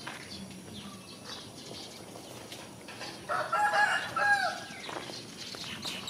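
A rooster crowing once, a call of a little over a second: a few short broken notes, then a final note that rises and falls. Small birds chirp faintly around it.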